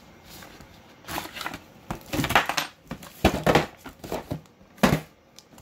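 Small cardboard surprise box being opened and its contents handled, a metal coin token among them: four bursts of rustling, scraping and knocking, each lasting up to half a second.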